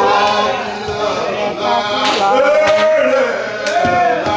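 A man praying aloud in a chanted, half-sung style, holding and bending long tones.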